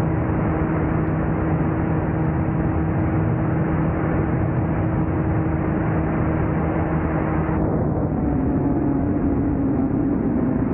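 Open-cockpit ultralight aircraft's engine and propeller running steadily, under heavy wind rush on the microphone. Near the end the engine note drops a little and starts to waver.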